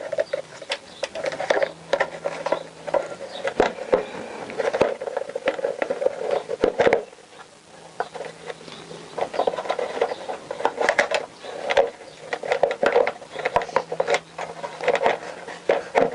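Plastic battery box being pushed and twisted into a motorcycle's steel frame: a busy run of small knocks, clicks and scraping of hard plastic against metal, with a short lull near the middle.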